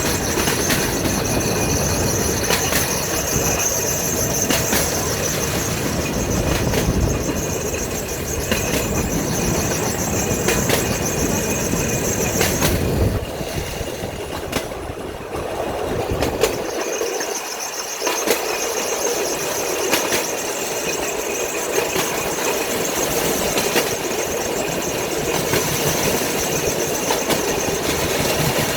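Velorail's steel wheels rolling downhill on railway track, with a steady high squeal and a click every second or two as the wheels cross rail joints. The noise drops for a few seconds about halfway through.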